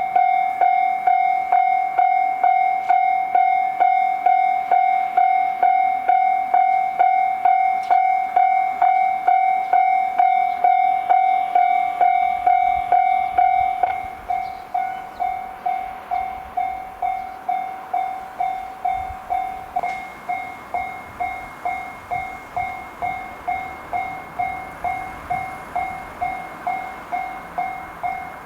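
Japanese level-crossing warning bell ringing, an electronic ding about twice a second, stepping down in volume about halfway. A passing train's running noise rises underneath around the same time.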